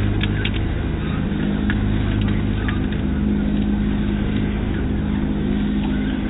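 Copra screw expeller running while pressing palm kernels: a steady low machine hum with a few sharp clicks scattered through it.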